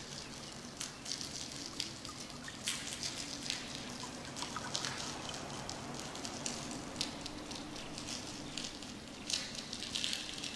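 Light, irregular clicks and taps from handling a clear plastic case of opalite stones, over a steady background of trickling-water ambience.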